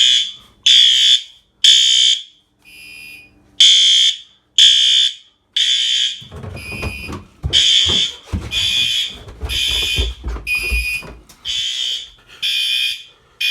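Fire alarm horns on a Fire-Lite ES-50X addressable system sounding in alarm, a high-pitched tone in short blasts repeating roughly once a second. Low thumps and knocks run under the second half.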